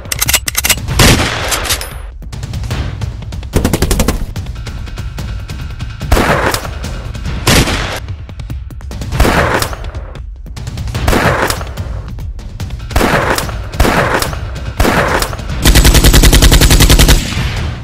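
Gunfire: single shots with echoing tails about once a second, then a rapid automatic burst of about a second and a half near the end.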